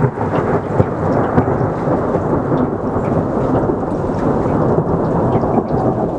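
Thunder rumbling, a long steady peal from a thunderstorm.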